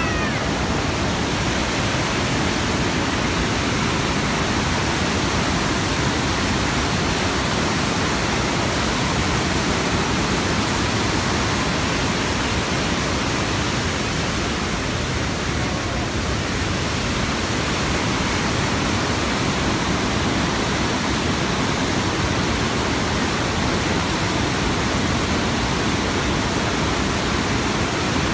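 The Rhine Falls, a large river waterfall: water plunging and rushing over the rocks in a loud, steady, unbroken rush.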